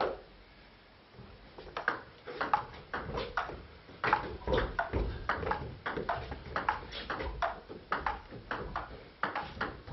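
Table tennis rally: the celluloid ball clicks sharply off the bats and bounces on the table at roughly two to three hits a second, starting about a second and a half in and running on as a long exchange.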